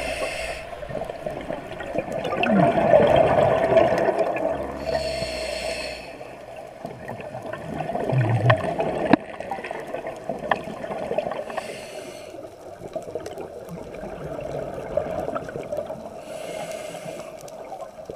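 Scuba diver breathing through a regulator underwater: a short hiss about every five to six seconds, with bubbling and gurgling in between, over a steady hum.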